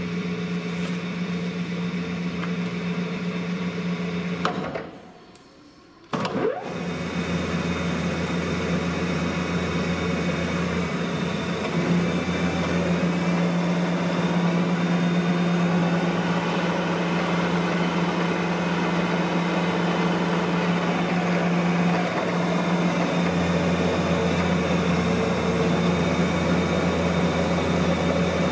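Aciera 22VA drilling-milling machine running, a steady mechanical hum from its spindle motor and drive. It runs down about four seconds in, is silent for a second and a half, then starts again with a click about six seconds in and runs steadily on.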